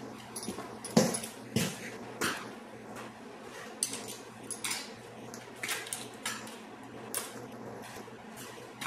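Scattered light metal clinks and knocks, about a dozen spread irregularly, from a propane torch and steel workpieces being handled on a workshop bench, over a faint steady hum.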